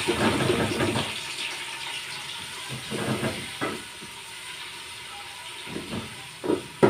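Chopped onions sizzling in hot ghee in a pot, loudest in the first second and settling to a steady lower hiss, with a few light knocks against the pot.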